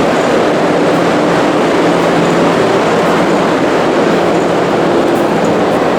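Subway train running through an underground station: a loud, steady rumble with a faint low hum.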